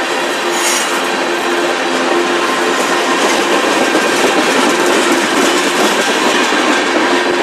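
Tank cars of a freight train rolling past close by, their wheels clattering steadily over the rails.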